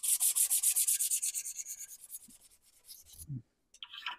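Strip of emery paper pulled back and forth around a steel spindle shaft, shoe-shine style: a fast, rhythmic rasping rub of about eight strokes a second that fades out over the second half. It is smoothing burrs and old vise marks off the shaft so a bearing will slide on.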